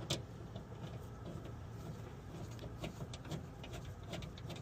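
Scattered light clicks and taps of parts and fasteners being handled inside a truck door during a window regulator fit, over a low background hum.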